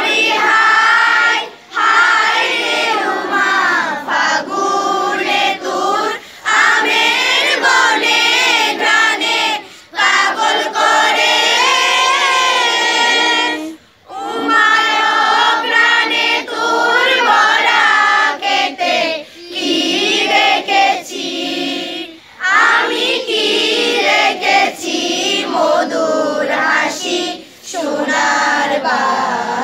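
A chorus of schoolchildren singing together in unison, in long held phrases broken by short breath pauses every few seconds.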